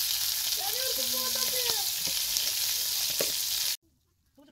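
Green and red peppers frying in a pan, a steady sizzling hiss that cuts off suddenly near the end.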